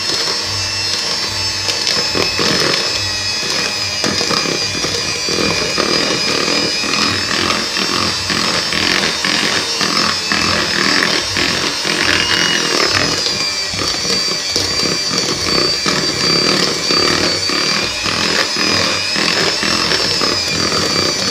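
Electric hand mixer running on low speed, its motor whining steadily while the twin beaters churn and scrape through thick cake batter in a plastic bowl.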